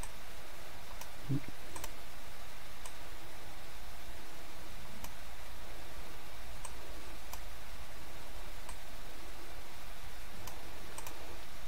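Computer mouse clicks, single and spaced a second or two apart, over a steady faint hiss.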